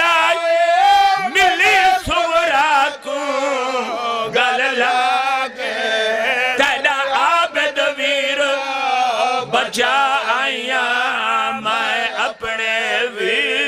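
Men chanting a Punjabi lament together: the lead reciter's voice through the microphones, with several other men's voices joining in long, wavering held notes.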